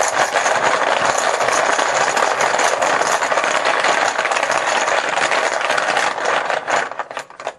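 A handful of team chips rattling as they are shaken and stirred in a container to draw one at random: a dense, continuous clattering, breaking into a few separate clacks near the end before stopping abruptly.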